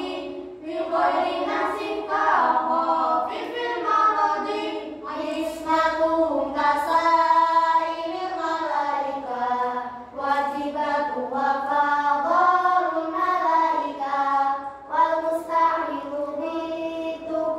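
Group of boys and girls chanting Arabic devotional verse (lalaran nazam) together in unison, sung unaccompanied in melodic phrases with brief breaths between them.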